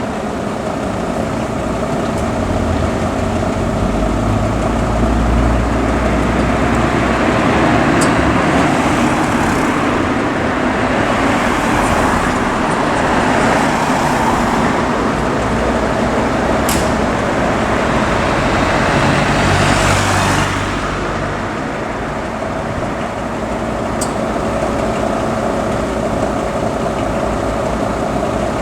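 Motor vehicle engines running and moving, a steady engine hum over road noise, with three sharp clicks several seconds apart; the noise eases a little about two-thirds of the way through.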